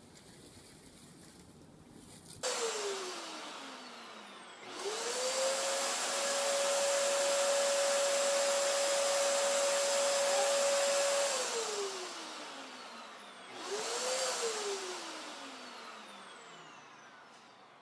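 Dyson upright vacuum cleaner being switched on and off. Its motor winds down, starts up again with a rising whine and runs steadily for about six seconds, then winds down with a falling whine. It is switched on once more only for a moment and winds down again.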